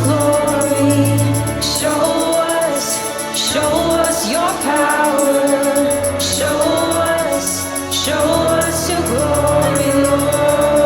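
Contemporary worship song: a band playing with voices singing long held notes.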